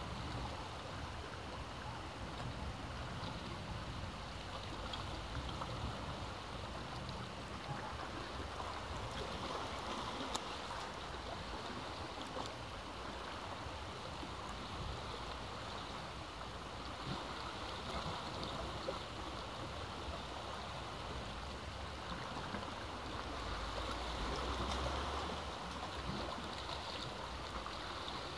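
Sea waves washing against a rocky cliff: a steady rushing surf that swells louder about ten seconds in and again near the end.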